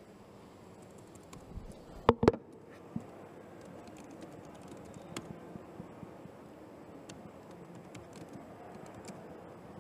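Typing on a computer keyboard: scattered soft key clicks over a faint steady background hum, with two loud knocks close together about two seconds in.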